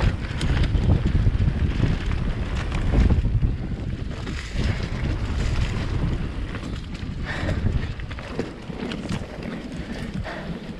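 Mountain bike descending a dirt trail: wind buffeting the camera microphone over the rumble of tyres on dirt, with frequent small clicks and knocks from the bike over bumps. It is loudest in the first three seconds or so, then eases off.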